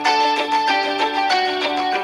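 A Samsung Galaxy S6 Edge Plus stock ringtone playing: a melody of quick plucked, guitar-like notes, several a second.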